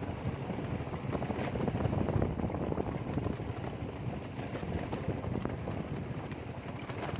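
A motorcycle riding over a rough dirt road, with wind buffeting the microphone: a steady, noisy rumble throughout.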